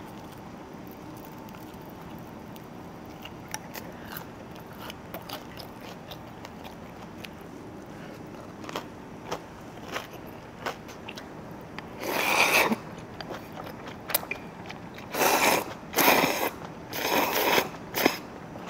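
Close-up eating sounds: quiet chewing and small utensil clicks, then from about twelve seconds in several loud slurps of noodles.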